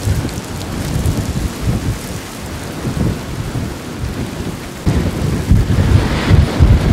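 Gusty storm wind rumbling on the microphone over a steady rushing hiss, with stronger gusts about five seconds in.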